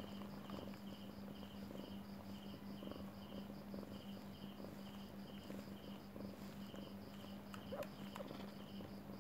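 Crickets chirping faintly in steady repeated trills, over a constant low hum. A brief small sound about eight seconds in.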